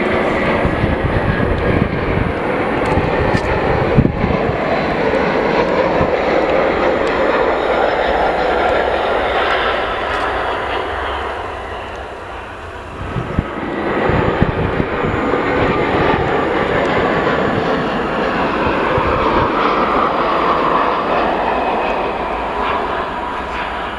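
Airbus A320-family jet airliners' engines on landing: a continuous loud jet rush with low rumble and a falling whine. It dips briefly about halfway through, then swells again as the next jet comes in.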